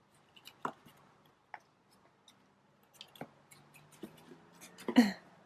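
Scattered light scratching and rustling of cats playing in a cardboard box and its packaging, with one louder short sound near the end.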